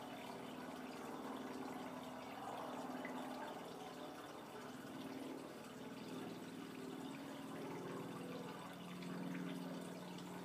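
Domestic cat purring continuously as it is brushed, a low pulsing buzz that swells and fades with each breath.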